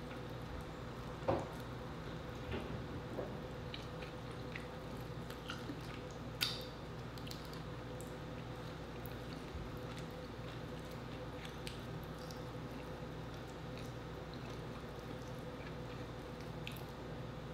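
Eating sounds from king crab: wet squishing and chewing as the meat is pulled from the shell and eaten, with scattered small clicks and two sharper cracks, about a second in and about six and a half seconds in. A steady low hum runs underneath.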